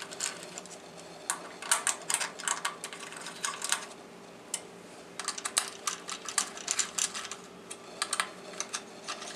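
Allen key clicking and ticking against metal set screws as they are tightened into a ravioli machine's face plate. The clicks come in irregular clusters over a faint steady hum.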